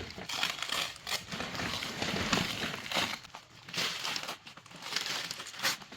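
Packaging being handled and unwrapped, with continuous crinkling and rustling and many small crackles.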